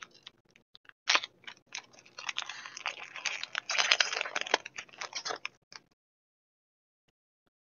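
Foil booster pack wrapper and trading cards being handled: a dense run of crinkling and clicking that stops abruptly about six seconds in.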